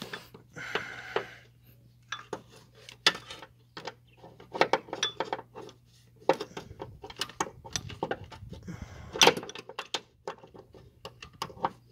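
A 14 mm socket wrench on a long extension clicking and clinking against metal in irregular clusters while it loosens a bolt to slacken the serpentine belt.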